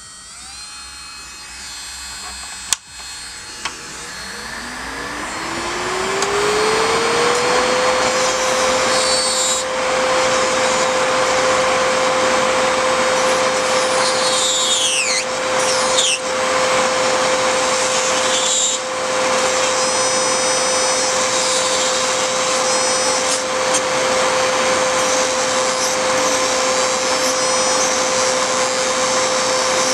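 A sharp click about three seconds in. Then the motor of a MelodySusie Scarlet nail e-file spins up in a smooth rising whine and settles into a steady high whine, running at just under 15,000 RPM, while a ceramic sanding bit grinds down poly gel over the rush of a nail dust collector fan. The pitch stays level under filing pressure, with no bogging or skipping.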